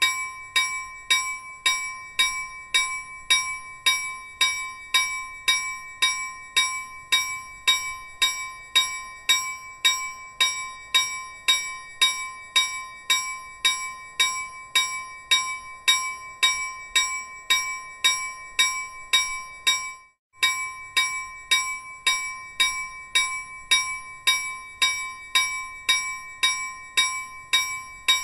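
Railroad crossing warning bell ringing steadily at about two strikes a second, each strike ringing on. It breaks off for a moment about two-thirds of the way through, then resumes.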